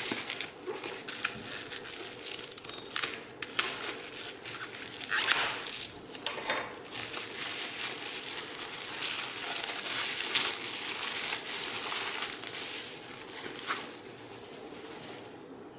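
Bubble wrap crinkling and rustling as it is pulled off a cardboard box, with louder crackles now and then. It dies down near the end.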